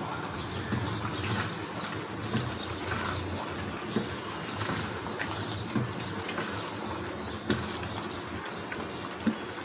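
Chicken karahi bubbling and sizzling in a wok as its tomato juices cook down, stirred with a wooden spatula, with a few sharp knocks of the spatula against the pan.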